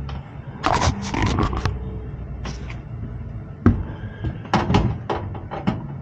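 Clattering knocks and rattles of hands and tools working at an opened gas furnace, in irregular clusters over a steady low hum, with one louder thump about three and a half seconds in.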